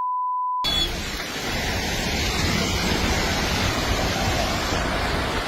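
A censor bleep for about the first half second, then a landslide's steady rushing roar of moving earth and debris, sounding like a raging river.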